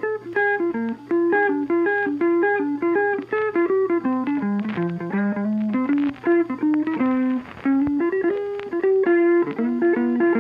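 Background music: a guitar picking a quick melody of short notes over a held low note.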